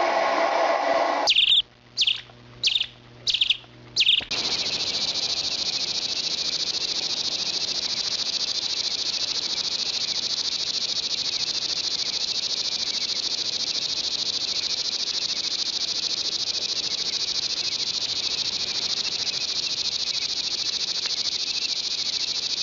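Rain-forest insect chorus: a steady, dense high-pitched buzzing. It is preceded in the first few seconds by four short, evenly spaced pulsed calls.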